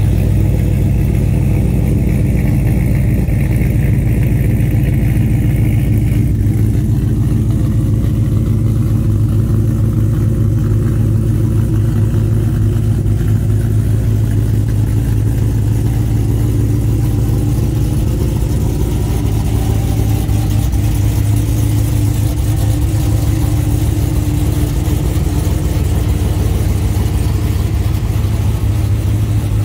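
408 cubic-inch V8 in a Chevrolet single-cab pickup idling steadily.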